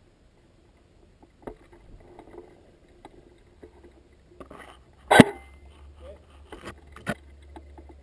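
Rustling and small clicks of a player moving and handling gear in dry leaf litter, with one sharp loud crack about five seconds in and two smaller knocks just after it.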